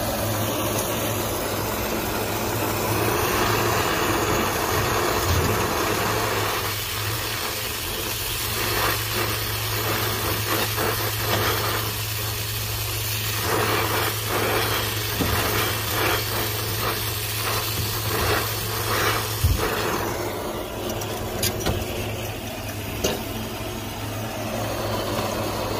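Brazing torch burning steadily with a rushing hiss and low rumble while it heats a brazed copper joint on an air handler's TX valve to unsweat the line. The flame flickers and crackles through the middle stretch.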